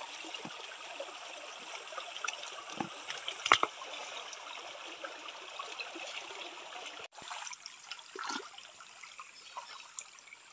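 Shallow rocky stream trickling steadily over stones, with a few small clicks and one sharp knock about three and a half seconds in.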